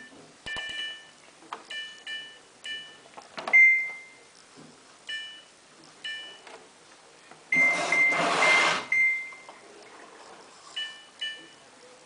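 Samsung WF8804RPA washing machine's control panel beeping as its buttons are pressed in service mode: a string of short multi-tone beeps, a longer single beep about three and a half seconds in, and four beeps in a row about eight seconds in. Under those four beeps a loud rushing noise sounds for about a second.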